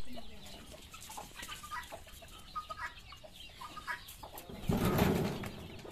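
Domestic chickens roosting in a tree, clucking softly with scattered short calls. About five seconds in, a brief louder rush of noise lasting about half a second.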